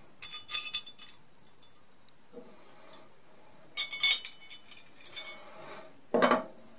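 Small metal saw vise parts clinking and rattling together in the hands, with a cluster of sharp clinks at the start and again about four seconds in. Near the end comes a duller knock as a part is set down on the wooden bench.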